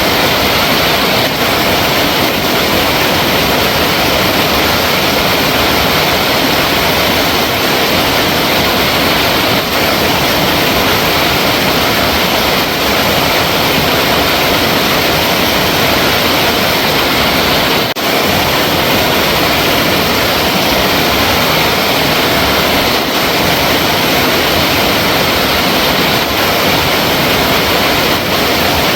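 Flowing water rushing steadily and loudly, an even hiss-like rush that does not change.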